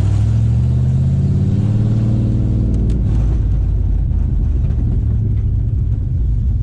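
A HSV Clubsport's 5-litre V8 running with no exhaust system, just straight extractors, no mufflers or catalytic converters. It accelerates with pitch climbing for about three seconds, then drops sharply and runs on at a lower, rougher rumble.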